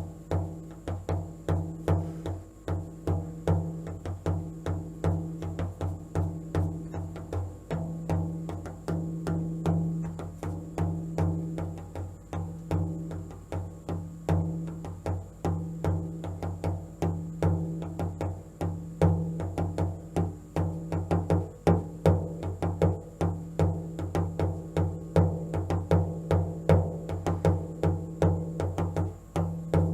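A drum beaten in a slow, steady rhythm of about two to three strokes a second, each stroke ringing with a low boom, as meditation drumming.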